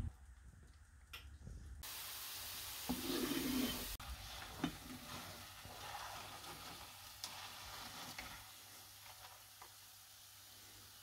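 Hot oil sizzling steadily as flour-coated onion slices deep-fry in a pan, starting about two seconds in, with a few light clicks.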